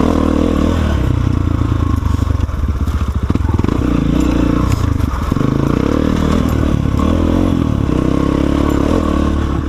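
Guerrero GXR250 four-stroke engine breathing through a freshly built homemade exhaust while the bike is ridden off-road, revs rising and falling, with a choppier off-throttle stretch a few seconds in.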